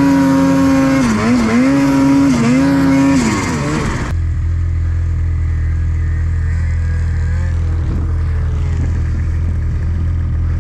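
Snowmobile engine at high revs, its pitch dipping and recovering several times as the throttle is eased off and reapplied. About four seconds in, it gives way abruptly to a steady low engine drone.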